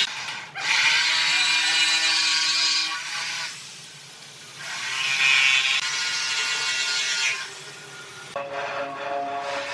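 A power tool running in two bursts of about three seconds each, with a quieter gap between them.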